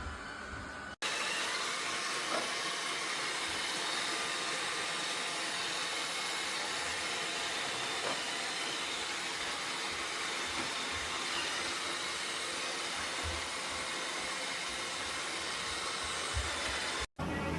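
iRobot Roomba Combo robot vacuum running: a steady hiss of its suction fan and brushes. It breaks off abruptly about a second in and again near the end.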